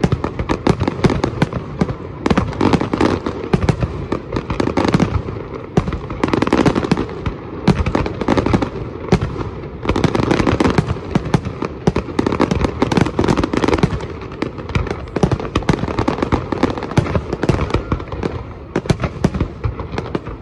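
Fireworks display: a dense, unbroken barrage of shell bursts and crackle, swelling and easing every few seconds.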